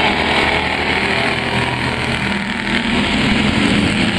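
A pack of pure stock dirt-track race cars running hard together, their engines a steady, loud drone that dips briefly about two and a half seconds in before picking up again.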